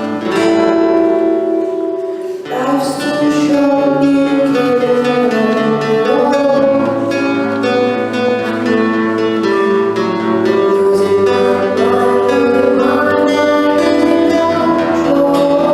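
A guitar played with a voice singing over it. The first two and a half seconds are held, ringing notes, after which the playing becomes fuller and rhythmic.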